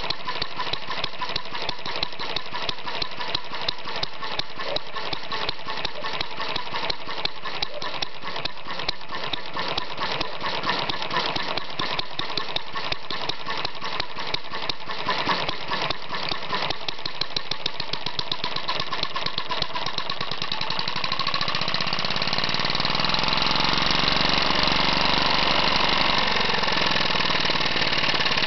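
Webster model single-cylinder four-stroke engine (24.7 mm bore, 31 mm stroke, air-cooled) running with a fast, even firing beat. About two-thirds of the way in it picks up speed and gets louder and smoother, its pitch rising and falling.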